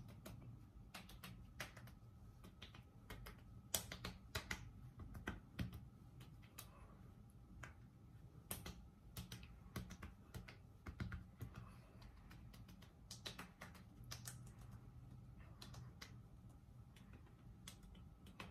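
Faint, irregular soft clicks and taps of hands patting and rubbing the skin of the face and neck during a facial massage, over quiet room tone.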